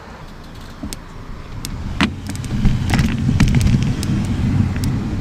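Low road and traffic rumble that builds from about two seconds in, with scattered sharp clicks.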